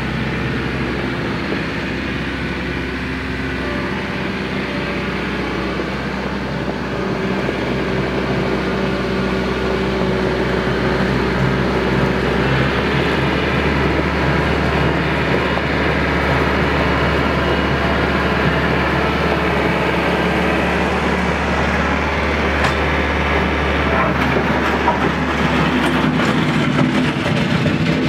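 RK 55 compact tractor's diesel engine running steadily as the tractor drives toward the listener, growing gradually louder as it nears. Gravel crunches and clicks under the tyres and the towed land plane, more audible near the end.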